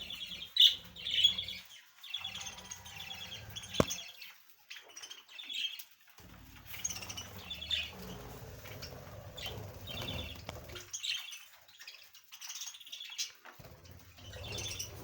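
Small cage birds chirping in quick repeated bursts, with a sharp click about four seconds in.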